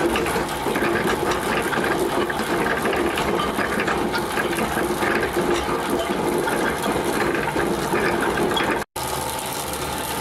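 Gear drive of a home-built coal feeder for a central-heating boiler running: toothed gears meshing with a steady mechanical rattle and whir. The sound cuts out for an instant about nine seconds in, then goes on a little quieter.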